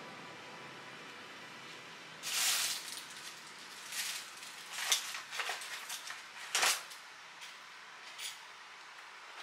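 Handling noises of a small metal battery cell on a plastic wire spool being turned and shifted about on a tabletop. A brief scrape about two seconds in, then several light knocks and rustles, the sharpest a little under seven seconds in.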